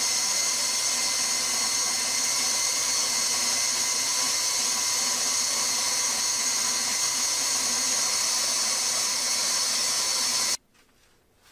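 KitchenAid stand mixer motor running steadily with a high whine, driving the spaghetti cutter attachment as a pasta sheet is fed through and cut into strands. It stops abruptly near the end.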